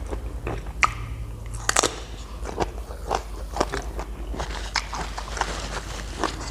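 Close-up biting and chewing of a large pickled shrimp, with crisp crunches. Two sharp bites come just under a second and near two seconds in, followed by a run of smaller crunches as it is chewed.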